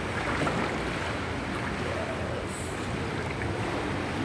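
Water in an indoor pool lapping and sloshing around a wading person, a steady even wash of noise with no clear strokes.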